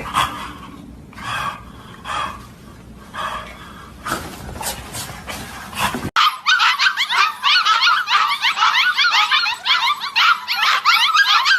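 A dog barking about once a second, then after a sudden cut a loud, dense run of rapid high-pitched yelping calls.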